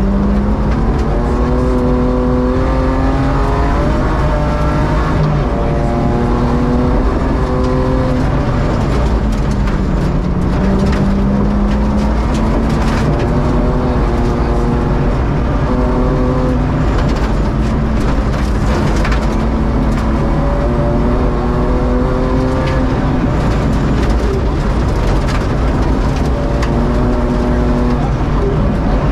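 BMW E36 rally car's engine heard from inside the cabin, pulling hard on a gravel stage, its revs climbing and dropping back again and again. Sharp ticks of gravel hitting the car are scattered through it.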